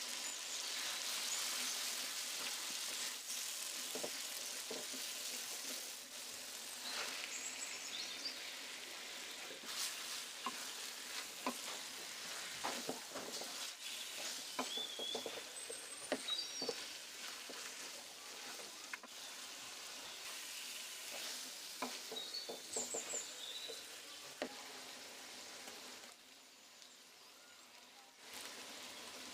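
Food frying in an oiled pan with a steady sizzle, as a spoon or spatula stirs it, giving repeated short scraping clicks against the pan. The sizzle drops off briefly near the end.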